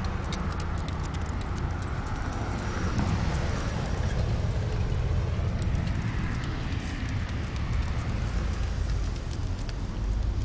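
A dachshund's claws ticking irregularly on concrete pavement as it walks on a leash, over a steady low rumble.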